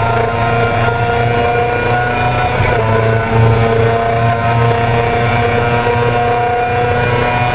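2000 Yamaha R6's 600 cc inline-four engine running at high revs under the rider, heard onboard, with a steady, high-pitched note and a brief dip about three seconds in.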